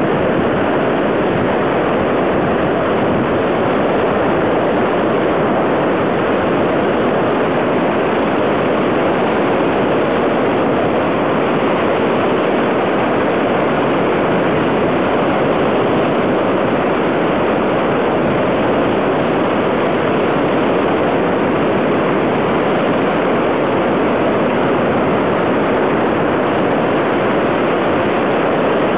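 South Esk River in flood, white water rushing down Cataract Gorge in a loud, steady roar.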